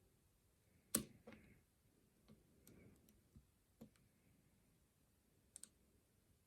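Faint, sparse clicks of a lock pick and tension wrench working the pins inside a Lockwood 215 padlock: a sharper click about a second in, a few light ticks after it, and a quick double click near the end.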